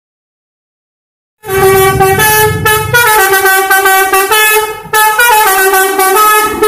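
Bus's Basuri V3 musical "telolet" air horn playing a quick tune of short notes that step up and down in pitch, starting about a second and a half in after silence.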